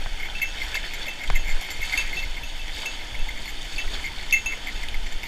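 Mountain stream water running steadily, with short high chirps repeating over it and a single sharp click about a second in.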